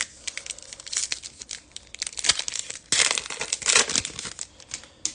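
Foil wrapper of a Panini Contenders football card pack crinkling and tearing open in the hands, in uneven bursts, loudest about three seconds in.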